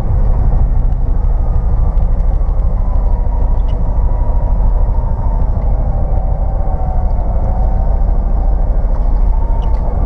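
Steady low rumble of a 1999 Subaru Forester's flat-four engine heard from the cab, running on only two cylinders after a coil-pack failure. A faint whine slowly falls in pitch and climbs again near the end.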